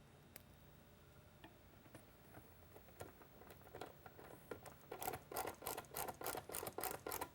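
Handling of small plastic lightbar parts and wiring: a few soft clicks, then from about five seconds in a quick run of clicking and rubbing, roughly four a second.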